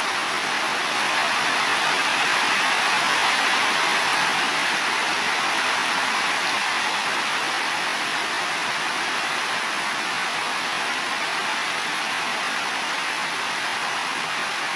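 Heavy rain falling on building roofs, a steady even hiss with no thunderclap.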